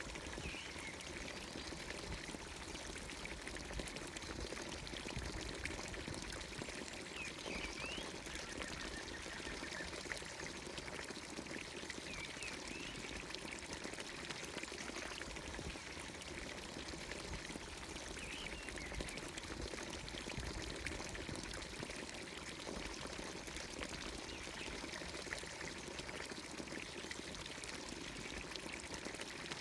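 Water pouring steadily from a village fountain's spout in a continuous splashing stream. Short bird chirps come through now and then, about five times.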